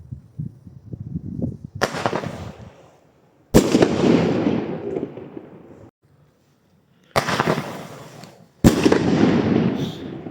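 New Year's fireworks going off: four loud sharp bangs, each trailing off in a fading rumble, with the last two close together near the end.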